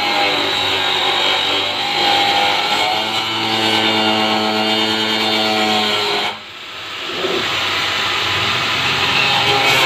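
Handheld electric cutting machine running as it cuts through the top of a blue plastic barrel, under background music with held notes. The sound drops suddenly about six seconds in and builds back up over about a second.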